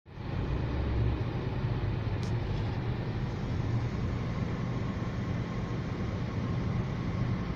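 Steady low hum and traffic noise heard from inside a car's cabin as it creeps through a traffic jam, with one short high click about two seconds in.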